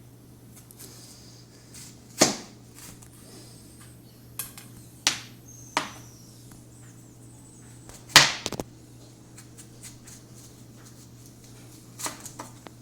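Kitchen knife chopping a frozen onion on a cutting board: single sharp knocks a couple of seconds apart, the loudest about eight seconds in, with a quick run of lighter taps near the end.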